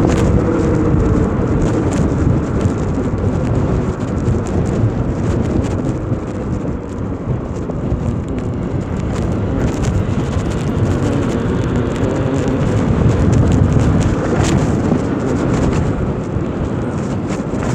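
Steady wind buffeting the microphone of a camera carried on a moving electric motorbike, a loud low rumble with some tyre noise.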